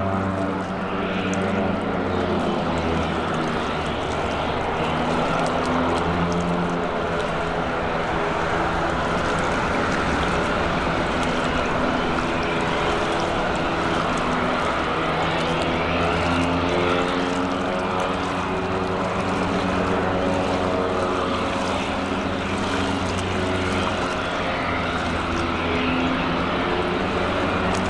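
DHC-3 Turbo Otter floatplane's turboprop engine and propeller running at low taxi power while it turns on the water: a steady drone whose pitch wavers slightly.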